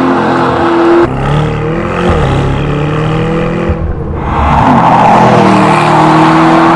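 Lamborghini Urus twin-turbo V8 running through an aftermarket QuickSilver sport exhaust, its note rising and falling as it is driven. The sound changes abruptly about a second in, and it gets louder and steadier from a little past halfway.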